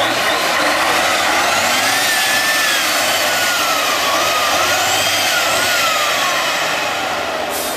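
Tatra 813 8x8 trial truck's engine running hard under load as the truck climbs through deep mud. A whine runs over it, wandering up and down in pitch.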